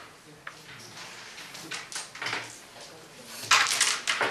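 Carrom striker clicking and knocking on the board and its wooden frame: a few light taps, then a louder clatter of several knocks near the end.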